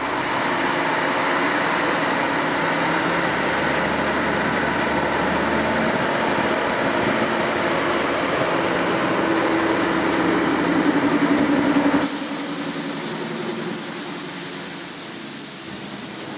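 Thomas Hill 138C diesel shunter's engine running as the locomotive moves along the track, the engine note rising about ten seconds in. About twelve seconds in the sound cuts to a steady hiss while the running sound fades.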